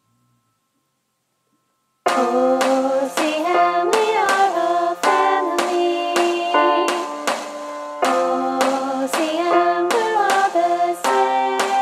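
Near silence, then about two seconds in a small group of choir section leaders starts singing the song in harmony over a steady beat of sharp percussive strokes, about two a second.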